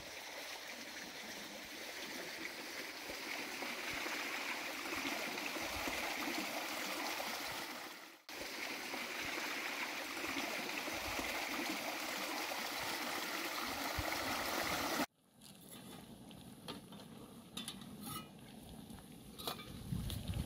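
A small stream running over stones, a steady rush of water. It cuts off sharply about fifteen seconds in, giving way to a quieter stretch with a few light clicks and taps.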